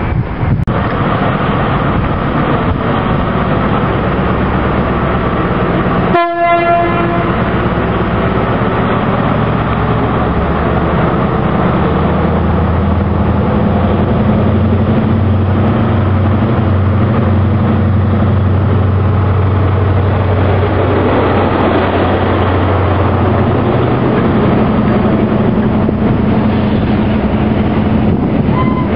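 InterCity 125 (HST) Class 43 diesel power car running as the train moves past, a steady engine drone with a strong low hum. There is a short train horn note about six seconds in.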